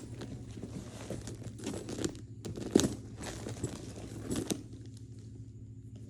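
Gift packaging crinkling and tearing as it is unwrapped: irregular rustles and sharp crackles, the loudest about three seconds in, over a low steady hum.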